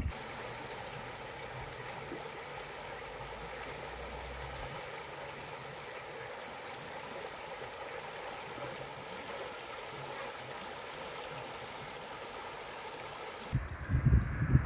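The North Esk River flowing over a rippling stretch: a steady rush of water. Near the end it cuts off abruptly and wind gusts buffet the microphone.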